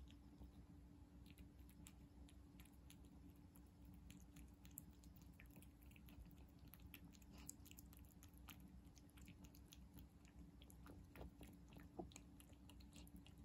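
Calico cat eating wet cat food: faint, irregular wet chewing clicks and smacks, with one sharper click about twelve seconds in.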